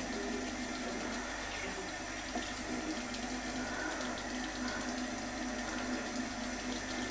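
Water running steadily in a bathroom.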